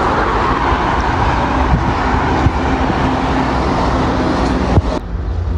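Road traffic noise: a steady rush of a vehicle going by on the road, cutting off suddenly near the end.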